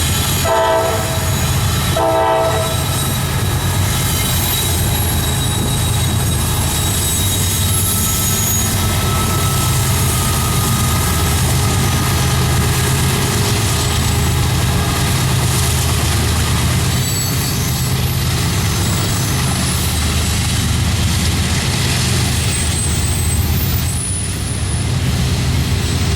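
Norfolk Southern diesel freight train passing close by: two short horn blasts in the first few seconds, then the steady drone of the locomotives and the rumble of the cars rolling past, with thin high wheel squeals over it.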